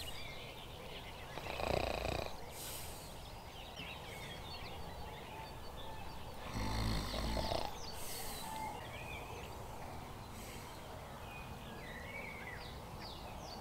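Quiet lakeside ambience with small birds chirping faintly, mostly in the second half. Two louder, low, breathy sounds stand out, about two and seven seconds in.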